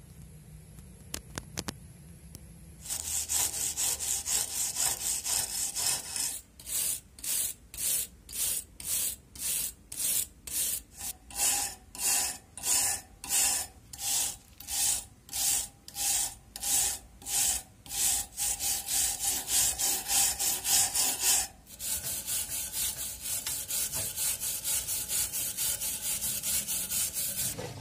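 Flat hand file scraping across the rusty steel head of an axe clamped in a bench vise. After a quieter start with a few light clicks, quick continuous filing begins, then settles into separate back-and-forth strokes about one and a half a second, and turns to rapid continuous filing again for the last few seconds.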